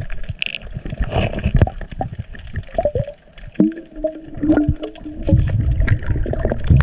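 A scuba diver breathing through a regulator, heard underwater: exhaled bubbles gurgling and rumbling, with scattered clicks and knocks and a brief hum about halfway through.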